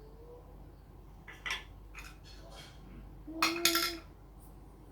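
Plastic Lego bricks clicking and clattering as pieces are handled. There are a few separate sharp clicks, then a louder rattle of clicks about three and a half seconds in, with a short steady tone beneath it.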